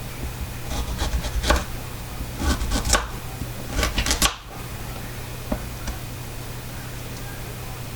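Knife chopping carrots on a cutting board: three short runs of quick cuts in the first half, then only a low steady hum.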